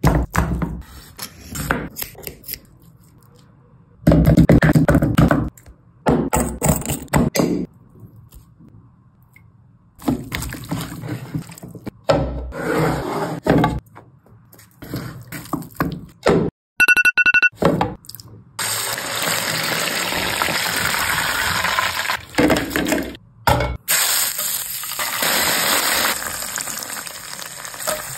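Close-miked kitchen preparation of chicken lollipops: wet handling of raw marinated chicken and flour sprinkled over it in a bowl, in separate bursts. About 17 seconds in comes a short pulsed electronic beep, then about seven seconds of steady sizzling from frying, and near the end sauce bubbling in a pan.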